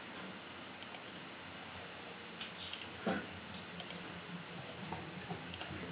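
A few faint, scattered computer mouse clicks over a steady background hiss with a thin high tone.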